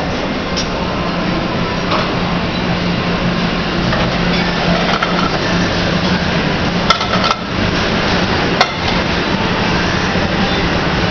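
Busy buffet serving-line din: a steady low hum under a broad clatter, with a few sharp clinks of serving utensils and dishes, the loudest about seven and eight and a half seconds in.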